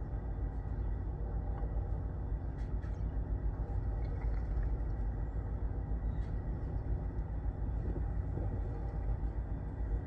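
Steady low outdoor rumble, with a few faint high ticks.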